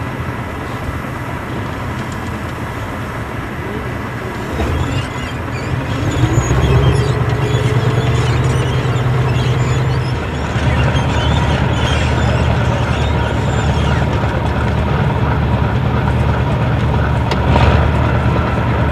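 Tracked armoured vehicle's engine running steadily. About five seconds in a rising whine comes in and levels off as the engine gets louder, and there is a single sharp knock near the end.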